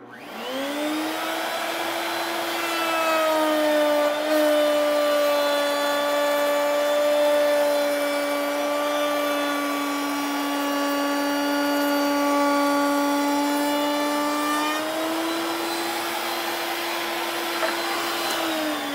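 Table-mounted router motor switched on, spinning up with a rising whine, then running steadily while an ogee bit cuts a profile along a board's edge; the pitch drops slightly while the bit is in the wood. Near the end it is switched off and the whine falls away as it winds down.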